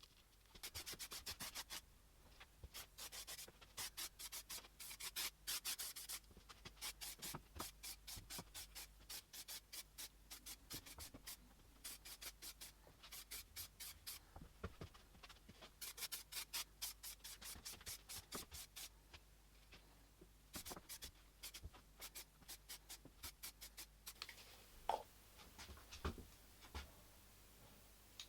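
Faint, rapid back-and-forth hand abrasion of metal, several strokes a second, in bursts separated by short pauses, with a few light knocks near the end.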